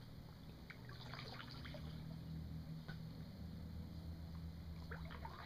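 Faint dripping and trickling of water from a canoe paddle into a mangrove creek, in small clusters about a second in and again near the end, over a low steady hum.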